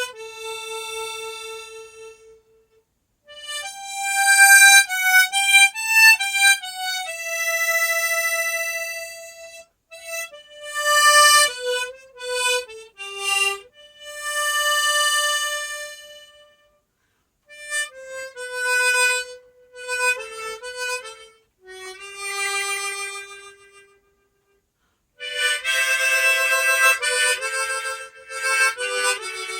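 Harmonica in the key of G playing a slow melody in short phrases of held notes, with brief pauses between them. Near the end comes a fuller passage with several notes sounding together.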